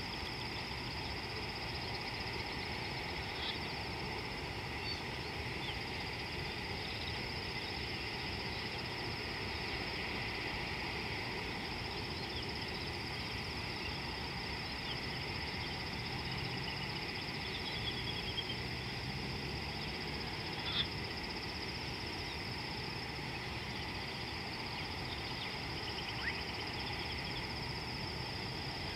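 Bush ambience: a steady high-pitched insect drone, with a few short bird chirps and trills scattered through it over a low background hum.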